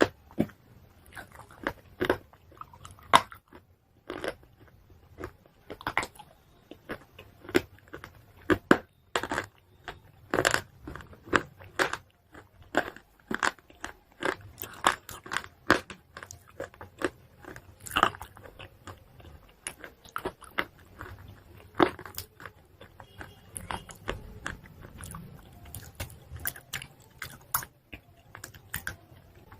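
Close-up crunching as pieces of hard white chalk are bitten and chewed: sharp, irregular cracks several times a second, with softer grinding between bites.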